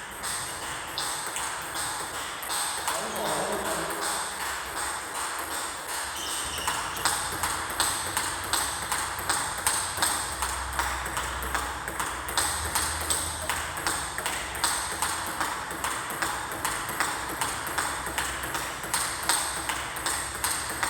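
Table tennis rally: a ball being struck back and forth between paddles and table in a quick, regular run of sharp clicks, about two to three a second, sharpest from about a third of the way in.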